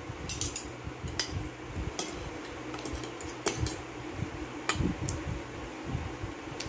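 Metal spoon and fork clinking and scraping against a ceramic plate, with about half a dozen sharp clinks at irregular intervals.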